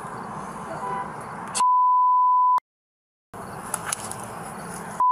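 A loud, one-second, single-pitch bleep tone dubbed over the audio, the kind used to redact spoken words. It is followed by a stretch of dead silence where the sound track is cut out, then a faint outdoor background hiss, and a second bleep begins right at the end.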